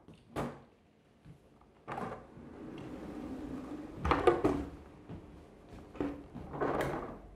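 Fletcher Capstan expanding round wooden table being turned by hand: the top's segments slide outward with a steady low hum from the mechanism, then a cluster of clunks about four seconds in, the loudest, as the extra leaves come up and drop into place. A further knock and clatter come near the end as the top settles at full size.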